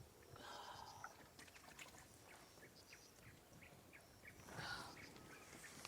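Faint forest wildlife calls: scattered short chirps and clicks, with two slightly louder calls, one just after the start and one about four and a half seconds in.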